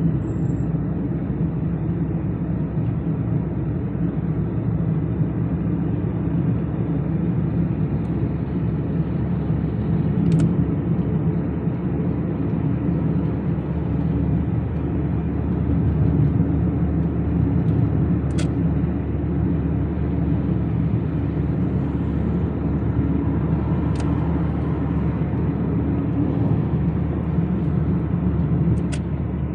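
Car driving on a city road: the steady low rumble of engine and tyres, with a few brief clicks.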